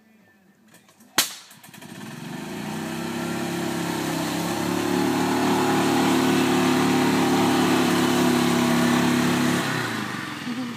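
A sharp knock about a second in. Then a lifted golf cart's engine comes up and runs steadily under load as the cart drives out of the mud, easing off near the end.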